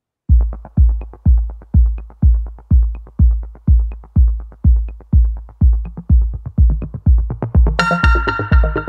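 Electronic dance music: a steady kick drum at about two beats a second, joined near the end by a bright synthesizer chord.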